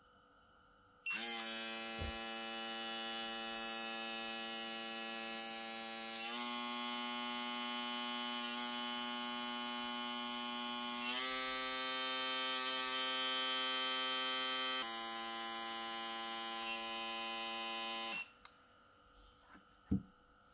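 UFree U1376 foil shaver's electric motor running with a steady, high-pitched buzzing whine. It starts about a second in, steps up in pitch twice as the speed setting is raised, drops back down, and stops about 18 seconds in.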